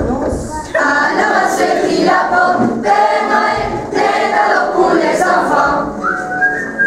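Group of schoolchildren singing together in chorus.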